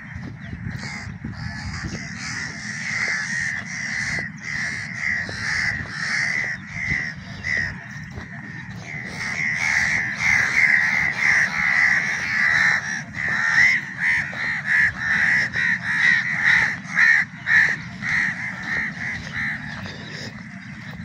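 A flock of crows cawing loudly, many harsh calls overlapping without a break, growing louder about nine seconds in.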